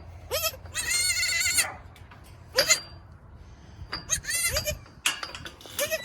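Baby goats bleating over and over: a run of short, high-pitched calls with one longer bleat about a second in.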